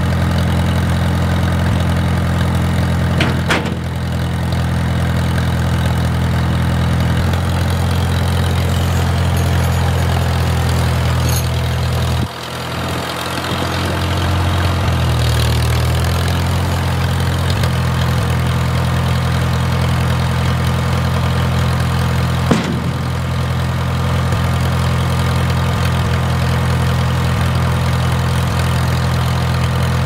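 An engine running steadily at a near-constant speed, with a brief drop about twelve seconds in.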